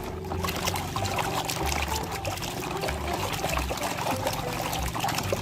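Water pouring and trickling over a plastic toy dump truck as it is washed, with many small clicks and knocks of the plastic being handled.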